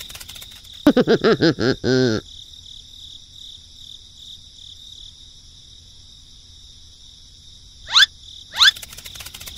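Steady chirring of crickets as a background ambience. About a second in comes a short run of squeaky, rapidly wavering warbles, like a cartoon voice, and near the end two quick rising whistle-like sweeps.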